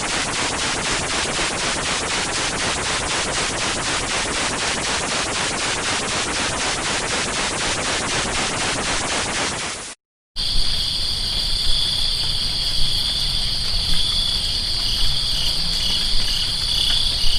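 Two sound effects in turn. First, for about ten seconds, a dense noise with rapid, even pulses, about five a second. It cuts off and, after a short gap, gives way to a high, steady, pulsing insect-like trill over a low rumble.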